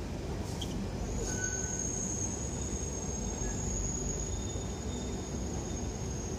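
Singapore MRT metro train arriving along the platform behind glass screen doors: a steady low rumble with a high, steady whine that starts about a second in.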